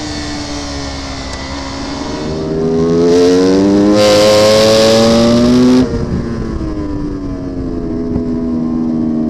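Racing superbike engine heard from onboard at race speed. The engine note sags, then climbs for a few seconds under hard acceleration with rising wind rush. It drops abruptly about six seconds in and falls away slowly again.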